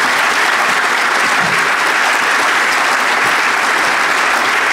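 Conference audience applauding steadily: dense, sustained clapping from a full hall.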